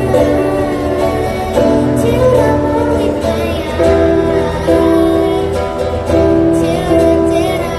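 A female vocalist singing a slow pop song over instrumental accompaniment, with long sustained notes.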